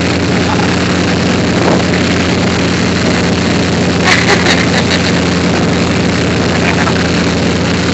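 Motorboat engine running steadily while towing a wake surfer, with the rush of churning wake water.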